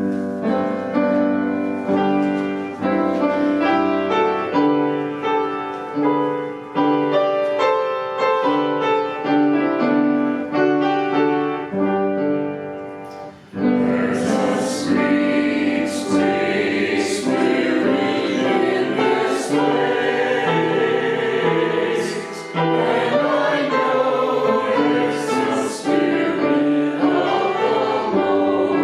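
A hymn. It opens with an instrumental introduction of held chords, and about halfway through voices come in singing with the accompaniment.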